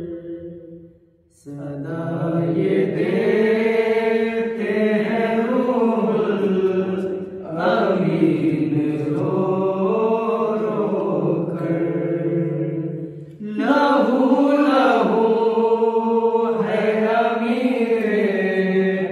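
A group of men chanting a nauha, a Shia mourning lament, together and unaccompanied, in long, slowly bending held notes. They pause briefly about a second in and again about thirteen seconds in.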